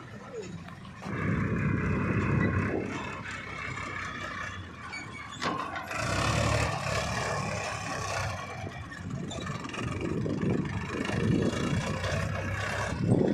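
JCB 3DX backhoe loader's diesel engine working as it digs and loads mud, getting louder about a second in and again around six seconds, with one sharp click about five and a half seconds in.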